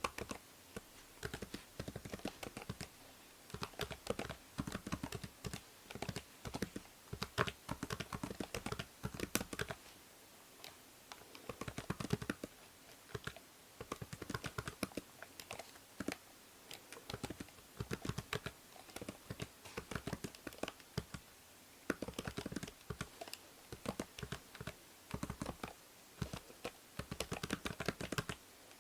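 Typing on a computer keyboard in quick runs of key clicks, with short pauses between runs, over a steady faint hiss from the binaural microphone.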